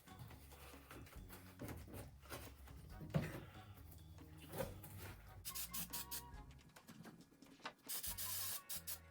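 Background music with a steady low bass line, over rubbing and scraping as carpet is handled and pressed into place. A run of short scraping strokes starts partway through, and a brief hiss comes near the end.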